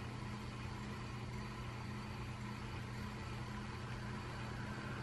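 Window air conditioner running: a steady low hum over a faint even hiss.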